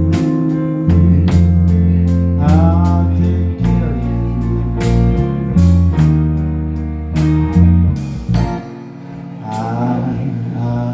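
Live blues band playing a slow instrumental passage between vocal lines: a guitar plays bending lead phrases over held bass notes and a steady drum beat.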